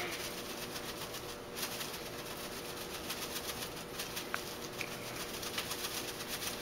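Spice jar of dried Italian seasoning shaken by hand: faint, quick rattling and pattering of the herbs, over a low steady hum.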